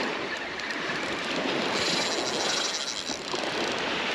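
Small surf washing on the beach, with wind on the microphone, and a rapid high-pitched clicking buzz from a spinning reel for about a second and a half, starting about two seconds in, as a hooked fish is fought on the rod.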